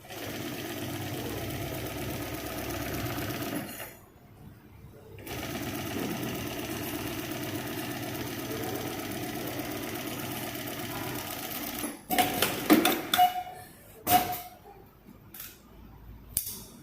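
GOA-1530B-7 direct-drive single-needle compound-feed industrial sewing machine stitching at a steady speed in two runs, pausing for about a second and a half around four seconds in. After it stops, near twelve seconds in, come a series of sharp clicks and knocks.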